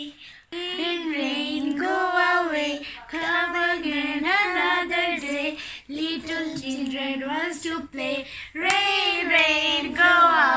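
A high voice singing a tune in phrases of held notes, with short breaks between them.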